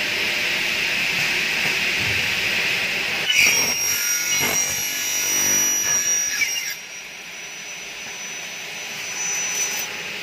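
Faster F88 double-head aluminium cutting saw, its 3 kW motor driving a 450 mm blade, spinning with a steady whine. About three seconds in, the blade cuts through a Xingfa aluminium profile at 45 degrees, a loud screeching cut with a high ringing tone lasting about three and a half seconds. It then drops quieter as the blade withdraws and keeps spinning.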